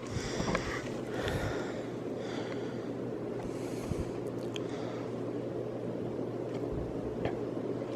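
1993 Hunter Infiniti ceiling fan running: a steady rush of moving air over a low, even motor hum, with a few faint ticks.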